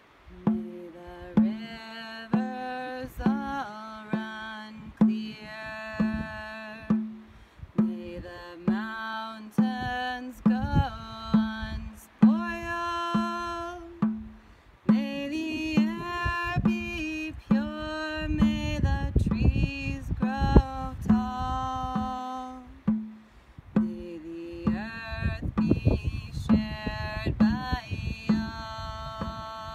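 A woman singing a chant-like song over a steady, even beat on a hand-held frame drum struck with a beater. The drum's hide is very dry.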